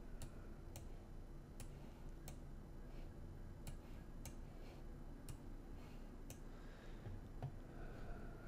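Faint computer mouse clicks, about a dozen at irregular intervals, as windows are moved and arranged on screen, over a low room hum.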